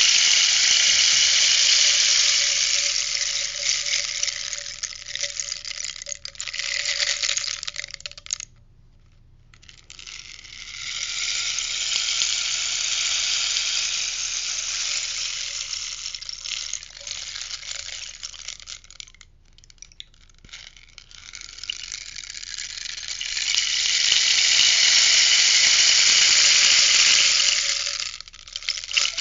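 Rainstick being turned over three times, each turn a pattering cascade of pebbles or seeds that runs about eight seconds and trails off before the next begins.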